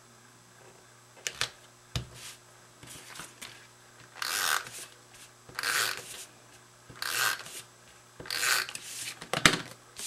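Four short rubbing strokes on cardstock, about one every second and a half, with a few sharp taps and clicks of paper being handled between them.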